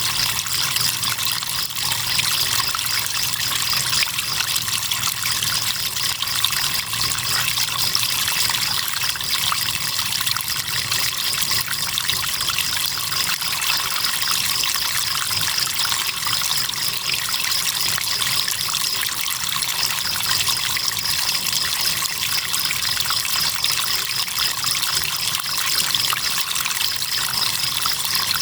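Crickets chirping in a steady, high-pitched pulsing trill over the constant trickle of running river water.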